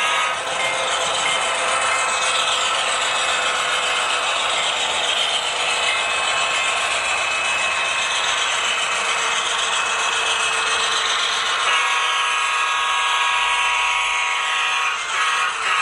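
Model diesel locomotive running along the track: a steady mechanical whir from its motor and gearing, with several high tones that drift slightly in pitch and grow denser about twelve seconds in.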